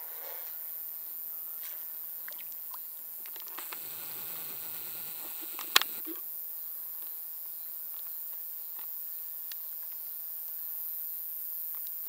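Quiet pond-side ambience: a steady high hiss with scattered faint ticks and one sharp click about halfway through.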